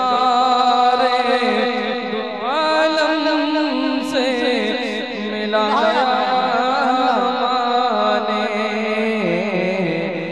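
Man singing an Urdu naat into a microphone over a sound system, drawing out long held notes that glide up and down in ornamented runs.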